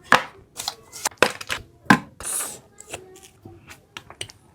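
Close-miked eating and food-handling noises: a quick run of sharp crackles and clicks, with a short hiss about two seconds in.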